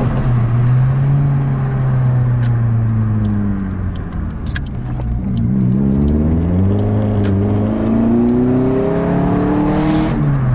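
Toyota Celica's 2.2-litre 5S-FE four-cylinder engine, fitted with a new cold air intake, pulling the car along. The engine note falls slowly for about four seconds, then climbs steadily as the car accelerates, with a few light clicks.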